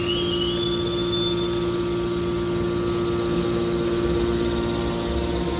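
The hydraulic power unit of a scrap-metal press, an electric motor driving a hydraulic pump, running with a steady hum and a steady mid-pitched tone. In the first second or so, a faint high whine climbs a little in pitch and then fades.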